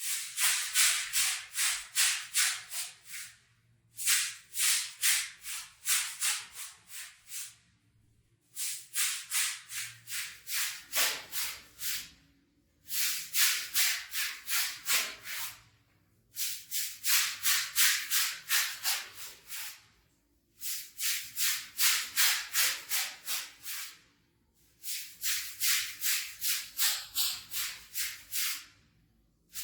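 A stiff brush scrubbing a rug's pile by hand, in quick rhythmic back-and-forth strokes, about three or four a second. The strokes come in seven runs of a few seconds each, with short pauses between.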